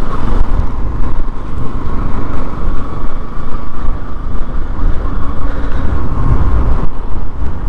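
Bajaj Pulsar NS200 motorcycle ridden slowly on a dirt track: its single-cylinder engine running steadily under a loud, uneven rumble of wind on the microphone.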